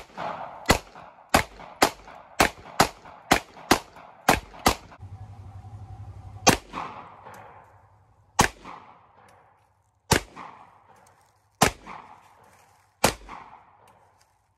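Handgun firing: a quick string of about ten shots in under five seconds, then five slower shots about a second and a half to two seconds apart, each with a short echoing tail.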